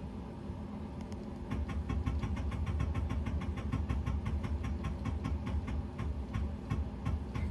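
Tormach CNC mill's Z axis being jogged in short steps: a rapid, even string of ticks, about five a second, starting about a second and a half in and stopping near the end, over the machine's steady hum.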